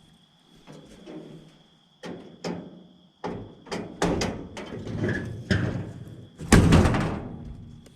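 A run of knocks and clatters from the metal panels or doors of the excavator's engine compartment being handled, the loudest a bang about six and a half seconds in.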